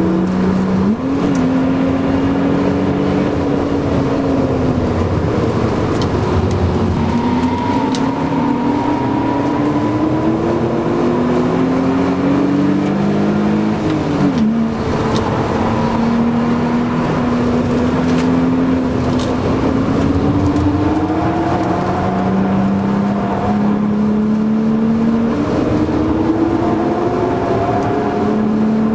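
BMW Z3 2.8's 2.8-litre straight-six engine heard from inside the cabin, pulling hard on track. Its pitch climbs under acceleration and falls on lift-off, with quick drops and rises at gear changes about a second in and again about fourteen seconds in.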